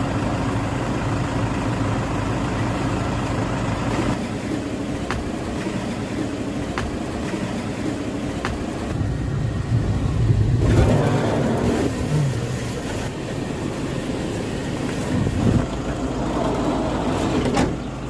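Passenger van engine running with road noise, heard from inside the vehicle, with a swell in engine sound partway through and a few light clicks.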